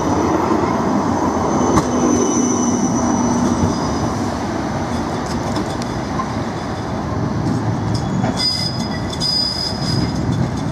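Siemens Combino Supra tram running past close by, its wheels rumbling on the rails with a steady electric whine over the first few seconds. A high squeal comes in near the end.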